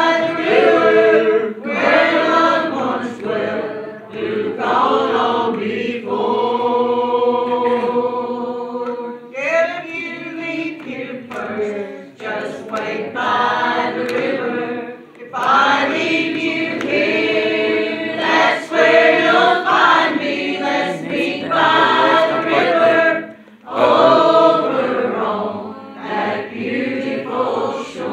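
Small church congregation singing a hymn together, several voices in unison, holding one long note about a quarter of the way through.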